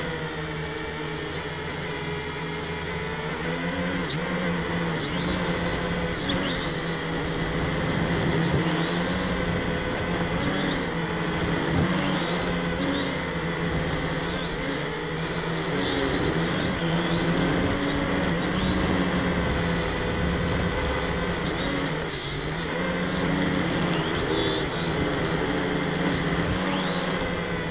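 Small toy quadcopter's electric motors and propellers whining steadily as heard by its onboard camera, the pitch wavering up and down as the motor speeds shift.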